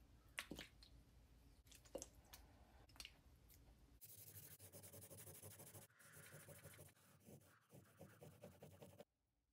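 A spray bottle squirts water onto sandpaper sheets about four times, then a steel blade cut from an old saw blade is rubbed on the wet sandpaper in a faint, continuous scraping that stops suddenly near the end.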